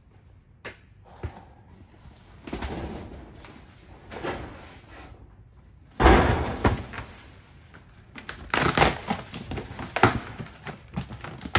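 Rustling, scraping and knocking as a storage unit's belongings are dug through and moved. The sounds come in irregular bursts, the loudest about six seconds in.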